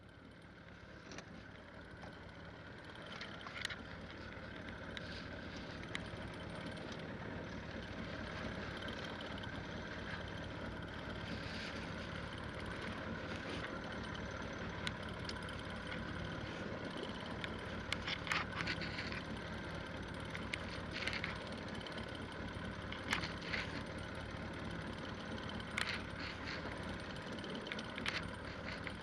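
Small fishing boat at sea: a steady low engine hum with water and wind noise, swelling up over the first few seconds, and scattered sharp clicks and knocks.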